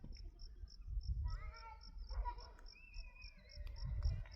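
A cricket chirping steadily, about four short high chirps a second. A few faint pitched calls come and go in the middle, over a low rumble.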